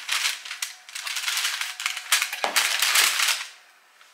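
Baking paper crinkling and crackling as cookie dough is spooned onto it, in two stretches that stop shortly before the end.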